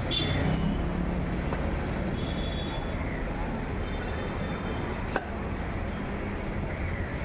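Steady background hubbub of a busy fish stall: a low rumble with faint voices. One sharp knock sounds about five seconds in.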